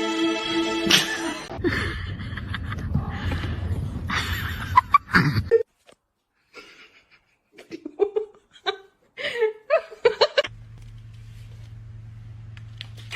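Short bursts of human laughter, with music ending about a second in and a steady low hum over the last few seconds.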